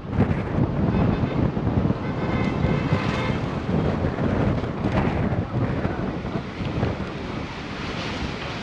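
A vehicle driving, with wind buffeting the microphone in a low, uneven rumble.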